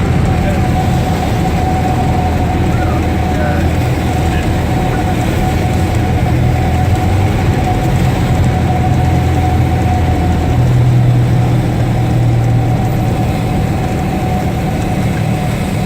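A 1976 Cessna's single piston engine and propeller droning steadily, with a steady whine above the drone; the engine's pitch shifts about ten seconds in.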